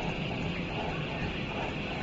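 Steady machinery noise with a low hum and an even hiss, holding at a constant level.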